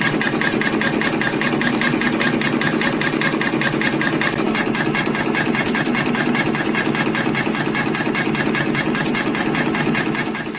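YHM CF-310 CNC spring coiling machine running in production, forming small compression springs from 0.4 mm wire: a rapid, even clicking of the coiling cycle over a steady mechanical hum.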